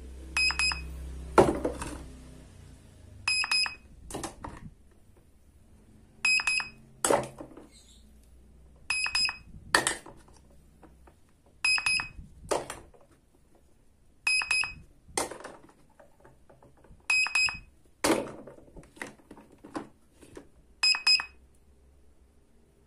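A toy cash register's handheld scanner beeps, eight short high-pitched beeps about three seconds apart, as toy fruit and vegetables are scanned. Each beep is followed by plastic pieces clacking as they are handled and set down, the loudest knock about a second and a half in.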